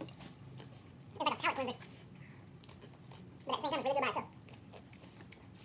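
Chewing and slurping of jjajangmyeon noodles, broken twice by short bursts of voice, each well under a second, about a second in and about three and a half seconds in.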